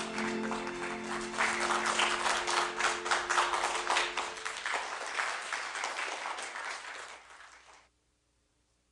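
Audience applause over the closing bars of the act's backing music. The music stops about halfway through, and the clapping carries on, fades, then cuts off abruptly near the end.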